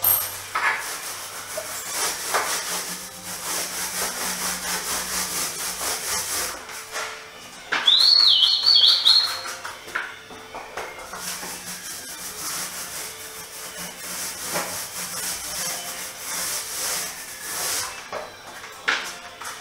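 Paint roller rolling paint onto a wall in repeated strokes: a rhythmic sticky hiss that swells with each pass. About eight seconds in, a brief high warbling tone sounds for a second or so.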